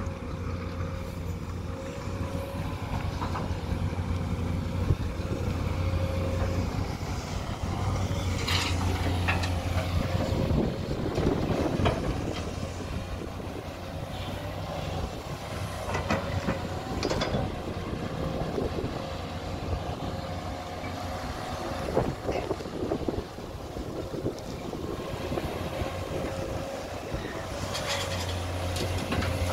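SANY SY215C hydraulic excavator's diesel engine running, its note rising and falling as it digs and swings, with scattered knocks and clatters from the bucket working the soil. Near the end a bucketload of soil pours into a dump truck's steel bed.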